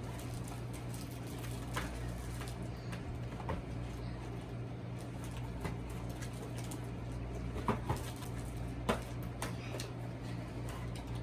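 Small plastic clicks and scratching as foam darts are pushed one by one into a toy dart blaster's magazine, with a few sharper clicks about eight and nine seconds in, over a steady low hum.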